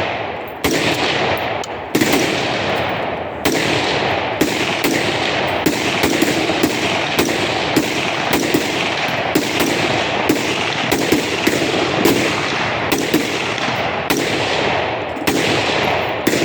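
Gunfire from several guns on a shooting range: rapid, irregular shots, roughly two a second, each echoing into the next.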